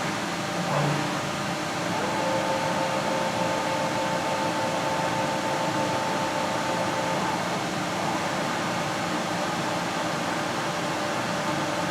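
Haas EC-1600 horizontal machining center running, with a steady hum of machine noise. A steady two-tone whine comes in about two seconds in and stops about seven seconds in, and there is a short low knock about a second in.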